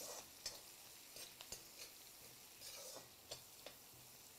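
Onions and capsicum frying gently in a steel kadai, a faint sizzle, while a metal spatula stirs them and clinks against the pan several times at uneven intervals.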